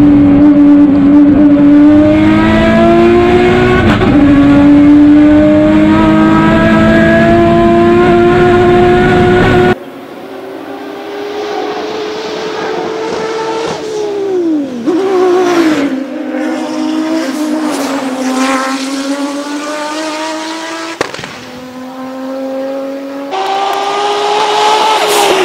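Turbocharged 3.0-litre V6 TFSI engine of an Audi S4 quattro hillclimb car at full throttle, heard loud from inside the cabin, its pitch rising through a gear with a brief dip for a shift about four seconds in. From about ten seconds in, the same car is heard from the roadside, quieter, its engine note climbing and then falling steeply as it lifts and changes down. It grows loud again near the end as the car comes closer.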